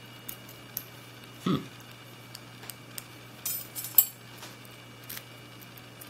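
Small metallic clicks and scrapes of a lock pick and tension wrench working in a padlock's keyway during single-pin picking. There is a duller knock about a second and a half in and a quick run of clicks, the sharpest about four seconds in.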